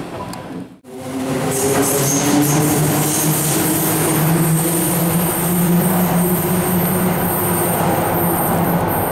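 Kobe subway Kaigan Line linear-motor train running: a steady motor whine over rail and wheel noise, starting about a second in.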